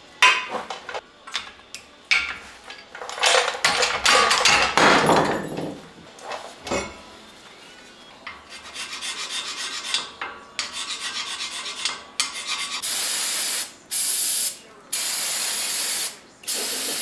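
Metal clanks and knocks as the old brake rotor and hardware come off the front hub, then quick rasping strokes of rust being scraped from the hub face. Then four bursts of aerosol brake cleaner hissing onto the hub.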